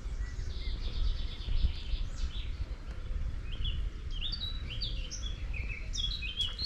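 Small songbirds chirping and singing in quick runs of short high notes, growing busier from about four seconds in, over a steady low rumble.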